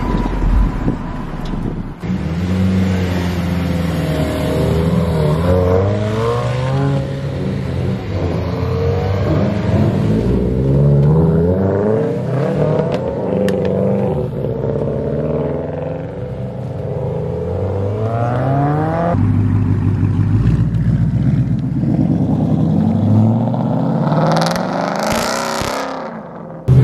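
Car engines revving and accelerating hard as several cars pull away one after another, the engine pitch climbing and dropping again and again with the gear changes.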